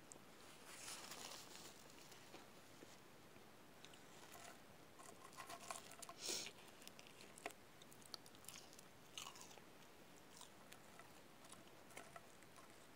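Faint close-miked chewing of a cheeseburger and french fries, with scattered small clicks and a brief louder burst about six seconds in.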